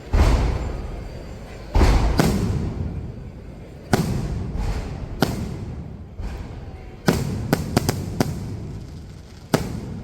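Fireworks bursting: about ten sharp bangs, several in quick clusters, each trailing off into a long rolling rumble.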